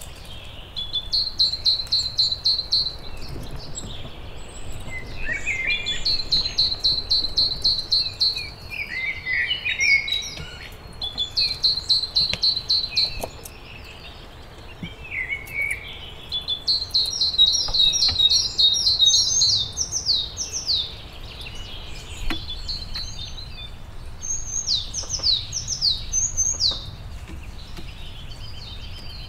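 Wild songbirds singing: repeated phrases of rapid trilled notes, each a second or two long, with several quick downward-slurred notes in the second half. A faint low background rumble lies underneath.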